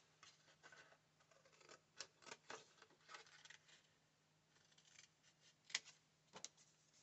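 Scissors snipping through paper: a faint, irregular series of short cuts, with a few sharper snips around the middle and near the end.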